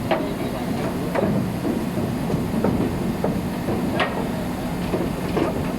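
Steady drone of textile-mill machinery with a low hum, broken by about six irregular sharp knocks, typical of hands-on work on a Trützschler BOA 1600 pre-mixer's spiked lattice.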